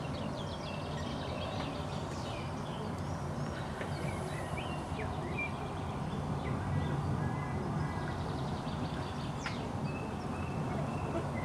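Small birds chirping and whistling over a steady low rumble of wind ahead of a thunderstorm, with one quick falling whistle about nine seconds in.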